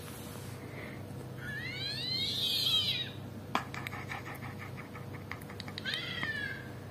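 Cat meowing: two high calls that rise and fall, about a second and a half in and again near the end. Between them comes a quick run of clicks, about seven a second.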